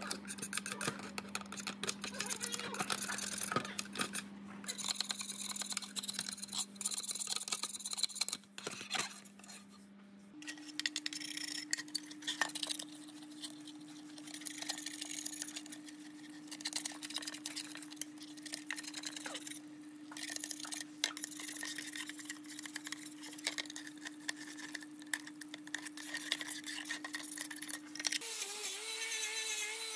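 Knife blade scraping flaking paint off a steel scale housing: repeated scratchy scrapes with light metallic clinks. After about ten seconds, a small brush scrubs the painted steel parts, with more short scratchy strokes.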